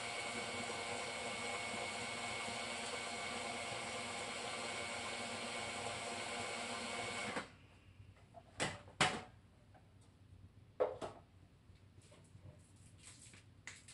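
Food processor motor running at high speed, mixing cake batter in its bowl with a steady whine. It switches off abruptly about seven seconds in. A few sharp plastic clicks and knocks follow as the bowl's lid is taken off.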